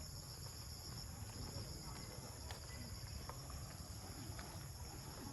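Steady high-pitched chorus of insects, several shrill tones held without a break, over a low rumble.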